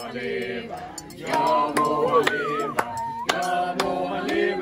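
A group of people singing together, with long held notes and several sharp claps through the singing.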